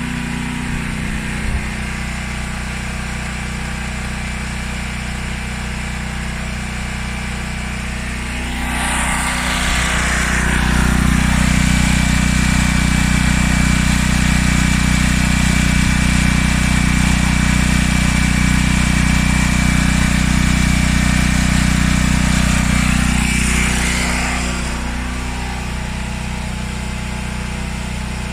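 Small portable gasoline generator engine running steadily. About eight seconds in, a louder steady whine joins and the engine sound gets heavier for about fifteen seconds, then both drop back to the plain running sound.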